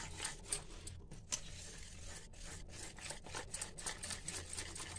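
Wire whisk beating thick rice batter in a steel bowl: a run of soft scraping strokes, about three to four a second.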